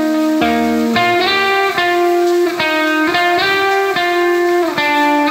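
Instrumental background music: a melody of held notes, one after another, each lasting about half a second to a second.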